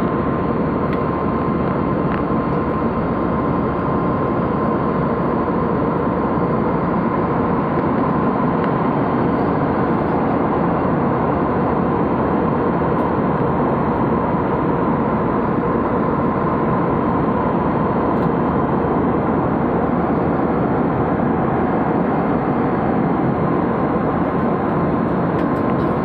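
Jet airliner cabin noise in flight: the steady roar of the turbofan engines and airflow, with a thin steady whine running through it.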